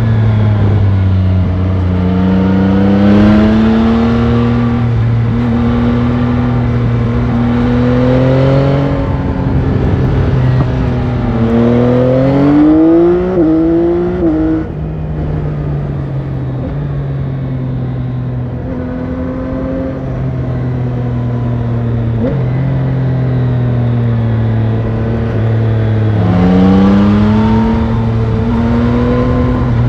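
Stock-exhaust Yamaha Tracer 9 GT inline-three engine under way, heard from onboard over a rush of wind noise. It cruises steadily, rises in revs about halfway through, then drops off suddenly as the throttle closes, and picks up again near the end.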